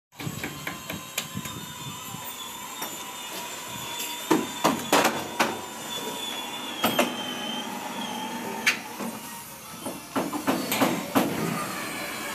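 Irregular sharp knocks and clanks of metal, in a quick cluster about four seconds in and another near the end, with a few single knocks between, over a faint steady high whine.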